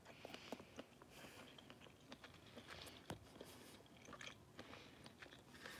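A person faintly chewing sushi, with soft mouth clicks close to the microphone and one sharper click about three seconds in.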